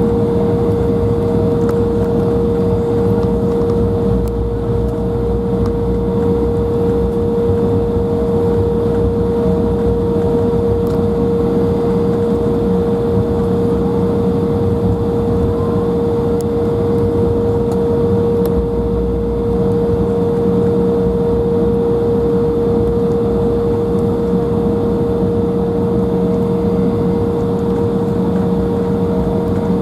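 Cabin noise of an Embraer 175 airliner with its GE CF34 turbofan engines running: a steady hum with a constant mid-pitched drone over a low rumble, holding at one power setting with no spool-up.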